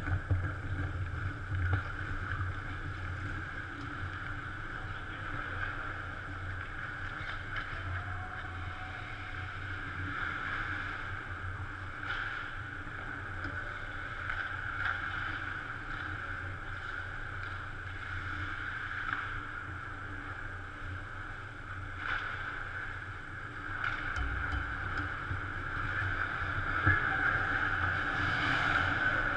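Indoor ice-rink ambience: a steady hum and hiss from the arena, with faint scattered scrapes and clicks of skates and sticks from play at the far end, growing a little louder near the end as the players come closer.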